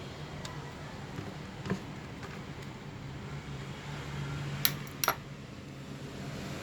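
A few sharp clicks and snaps of a tool prying open a microscope part's housing, over a steady low hum.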